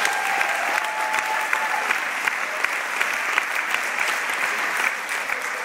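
Audience applauding steadily, with a drawn-out cheer rising over the clapping in the first couple of seconds; the applause dies away near the end.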